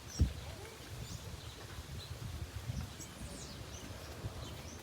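Faint bird chirps and short whistles over a low, uneven rumble, with one sharp low thump about a quarter second in.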